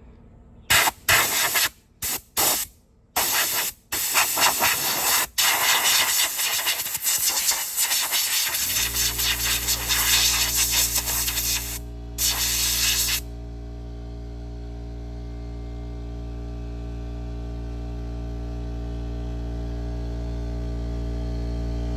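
Compressed air hissing from a blow gun in several short blasts and then one long blast of several seconds, as a mower's dirty air filter is cleaned. About nine seconds in, an air compressor starts and runs with a steady hum that grows slowly louder.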